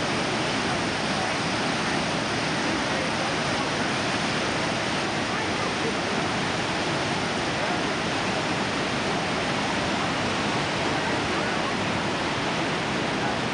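Large river waterfall (Mesa Falls) heard close up: a loud, steady, even rush of falling and churning water.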